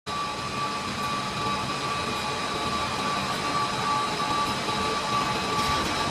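Fiber cement board production-line machinery running steadily: an even mechanical noise with a few constant whining tones.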